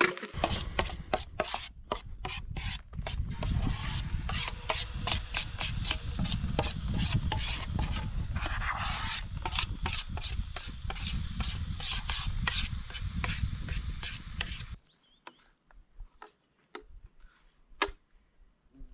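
A spoon scraping pancake batter out of a camping pot, in rapid, repeated scraping strokes that stop suddenly about fifteen seconds in.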